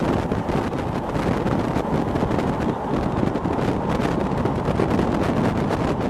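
Strong wind buffeting the microphone, a loud, steady rushing noise. These are the tornado's inflow winds.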